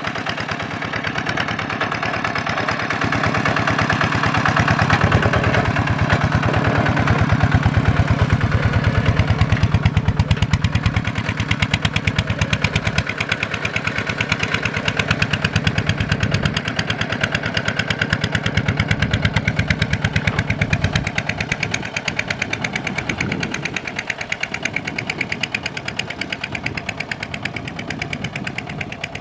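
Kubota single-cylinder diesel engine running with a rapid, even firing beat. It grows louder over the first several seconds, then eases back about ten seconds in.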